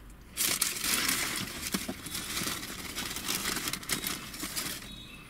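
Slurping and sucking at the rim of a small plastic cup of potato and gravy: a hissy rush of noise with many small clicks, starting about half a second in and lasting about four and a half seconds.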